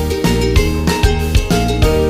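Upbeat instrumental background music with a steady beat and a bass line.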